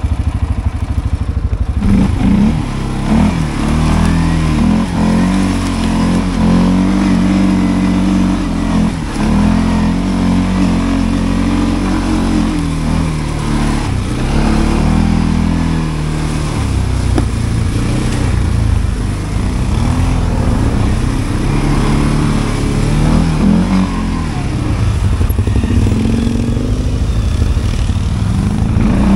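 CF Moto 520L ATV's single-cylinder engine running under throttle while riding, its pitch rising and falling over and over as the throttle is worked. The note is steadier for the first couple of seconds.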